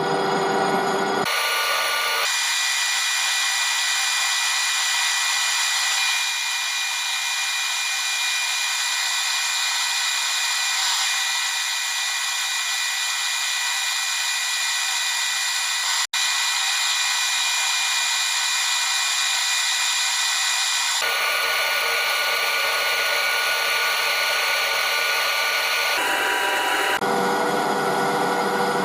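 Metal lathe running and turning brass with a carbide tip: a steady machine whine with several high tones. The tone shifts abruptly a couple of times.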